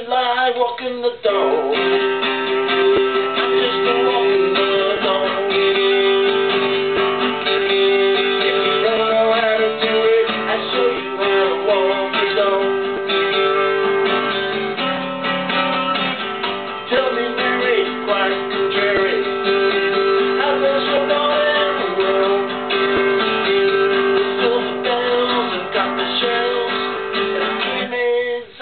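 Acoustic guitar playing a blues, strummed chords with single-note fills.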